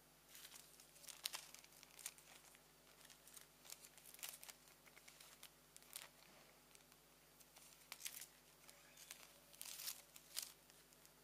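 Thin reflective plastic film crinkling and crackling in irregular bursts as it is handled and bent, loudest about a second in and again near the end.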